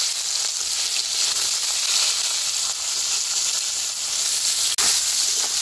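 Chopped onions sizzling in hot mustard oil in a kadai, a steady frying hiss that breaks off for an instant near the end.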